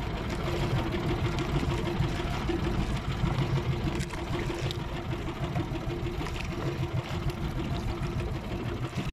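Steady hum of a small boat's engine running at an even pace, mixed with wind and water noise.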